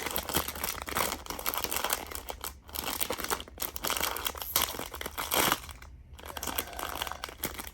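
Blind-box packaging being opened by hand: crinkly wrapping crumpled and torn, with irregular crackles and sharp clicks.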